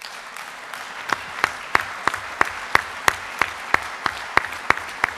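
A hall audience applauding at the end of a speech. About a second in, the applause falls into rhythmic clapping in unison, about three claps a second, over the general applause.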